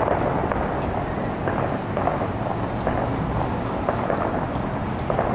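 Fireworks display: a dense, continuous run of many bursts and crackles that blend into one steady rumble.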